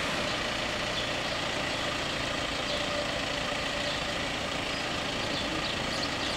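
A heavy engine idling steadily, a continuous even rumble.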